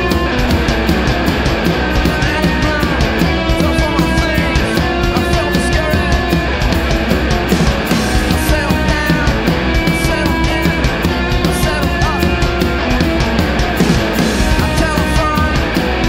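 Rock music with a steady beat.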